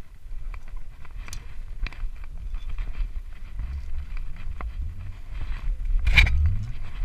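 Rope and climbing-gear handling noise picked up by a body-worn camera during a rope haul: a low rumble with scattered clicks and scrapes, and one louder scrape about six seconds in.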